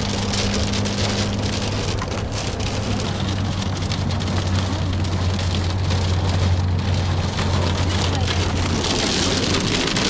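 Heavy rain hitting the roof and windscreen of a moving car, heard from inside the cabin as a dense, steady hiss of drops over the low hum of the engine and tyres.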